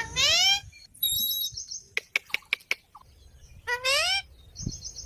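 Parrot calling: two loud rising squawks, one at the start and one about four seconds in, with a quick run of high chattering notes and a handful of sharp clicks between them.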